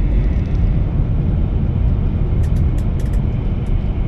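Steady low rumble of an E3 Shinkansen's passenger cabin with the train running at high speed, with a few faint clicks about two and a half to three seconds in.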